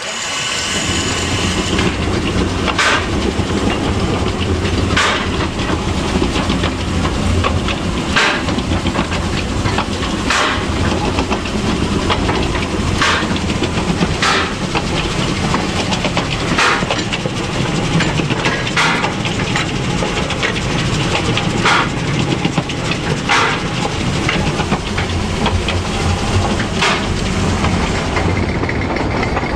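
Kc4 steam locomotive hauling a 750 mm narrow-gauge train, heard from on board while it runs: a steady low rumble and hiss, with a sharp click every two seconds or so.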